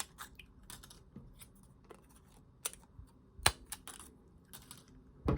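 Hand hole punch clicking as it punches dart flights: scattered small clicks and a few sharp snaps, the loudest about three and a half seconds in and again just before the end.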